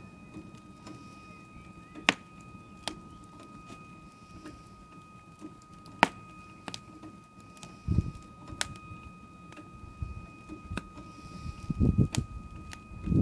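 Wood fire crackling, with sharp, irregular pops every second or so and a few dull low knocks near the end.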